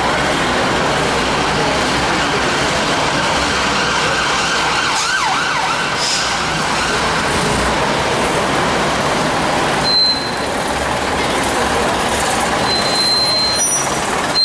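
Leyland RTW double-decker bus with its Leyland O.600 diesel engine running as it pulls slowly forward, a steady dense engine drone. A few short, high-pitched squeals come about two-thirds of the way in and near the end.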